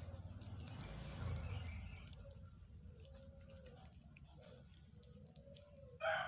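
Cats gnawing kernels off a boiled corn cob, heard as faint scattered chewing clicks. A rooster starts crowing loudly near the end.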